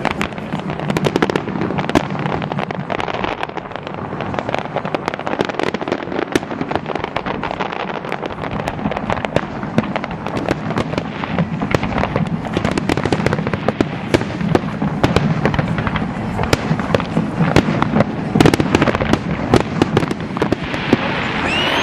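Fireworks display: a dense, continuous barrage of bangs and crackles, the reports coming many times a second without a break.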